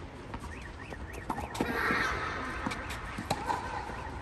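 Tennis rally on a clay court in a large indoor hall: a string of sharp racket strikes and ball bounces. A brief cry is heard about halfway through.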